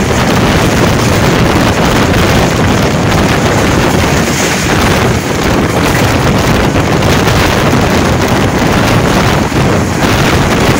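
Loud, steady rush of wind buffeting the microphone at an open window of an express passenger train running at speed, mixed with the low rumble of the coach on the rails.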